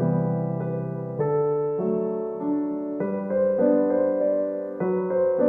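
Background music: soft piano (electric piano) playing sustained chords that change every half second or so.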